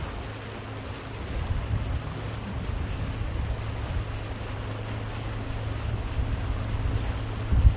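A boat's engine running steadily as it moves across open water, a constant low hum, with wind buffeting the microphone. There is a low thump near the end.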